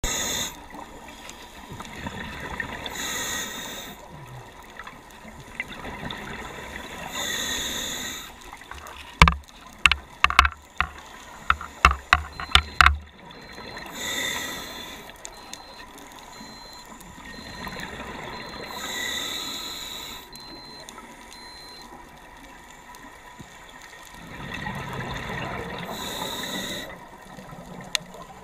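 Scuba diver breathing through a regulator: a hissing inhale every four to five seconds, with the bubbling rush of the exhale between them. In the middle comes a quick run of sharp clicks and knocks lasting a few seconds, the loudest sounds here.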